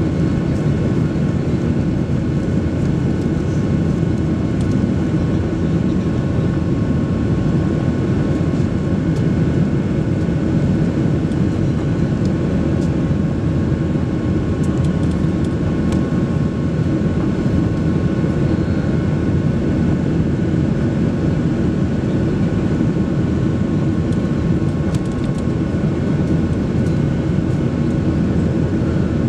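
Steady cabin noise of a Boeing 737 Next Generation airliner climbing after takeoff: its CFM56 turbofans and rushing air make an even low roar, with faint steady whining tones above it.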